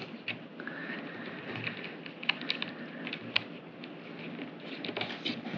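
Light plastic clicks and rubbing as fingers press and work a small plastic cap onto the motor arm of a DJI Spark mini drone, with one sharper click a little past the middle.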